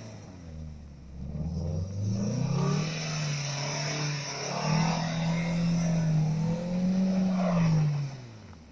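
Lancia Dedra Integrale estate's engine revving up and held at high revs, pitch swinging a little, as the car slides sideways on snow; the revs drop away near the end.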